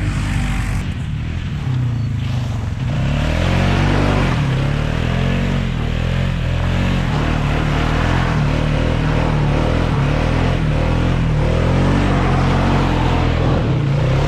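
A vehicle engine running, its pitch rising and falling several times.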